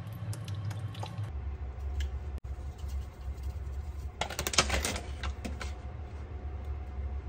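Light clicks and taps of containers and a spoon against a plastic food-processor bowl as seasonings and ground sesame are poured and shaken in, with a quick flurry of sharper taps about four seconds in, over a steady low hum.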